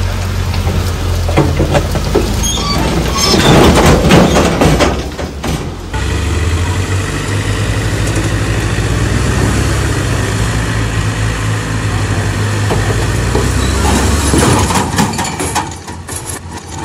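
Heavy diesel engine running steadily, with a louder rush of noise from about three to five seconds in and again near the end.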